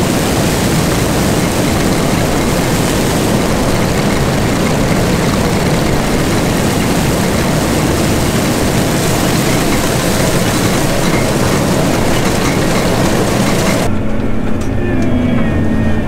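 John Deere 9500 combine running under load as its corn head takes in standing corn stalks: a loud, steady rush of machine noise. About two seconds before the end it cuts off suddenly to a much quieter, steady low drone.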